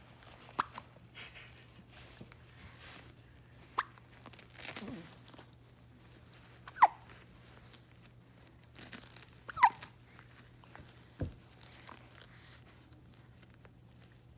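Newborn baby hiccuping: short, sharp, squeaky hics about every three seconds, four or five in all, with faint rustling between and a soft low thump near the end.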